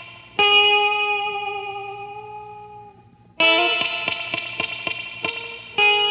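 Music: guitar chords struck three times, each left to ring out and fade.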